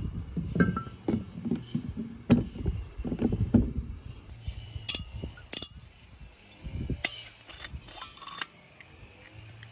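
Scattered sharp knocks and glassy clinks from a glass jar of ume plums and glass bottles being handled. Near the end the screw cap of a green glass shochu bottle is twisted open.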